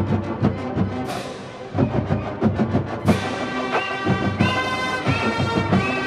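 Marching band and drumline playing: low drum hits pound under two ringing crashes about one and three seconds in. After the second crash the band comes in on held chords over the drums.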